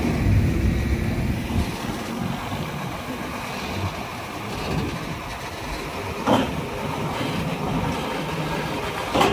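Heavy tractor-trailer rolling slowly past: the truck's diesel engine running with a low rumble, and the loaded lowboy trailer rattling as it moves.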